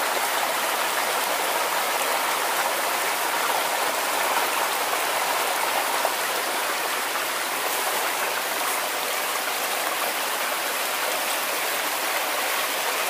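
A small, shallow stream running over rocks, a steady, even rush of splashing water.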